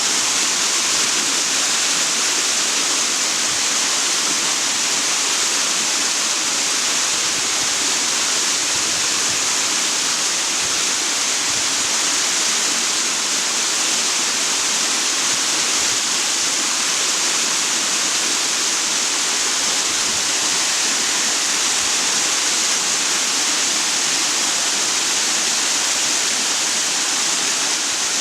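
Waterfall on a mountain stream, water falling and splashing in a steady, unbroken rushing hiss.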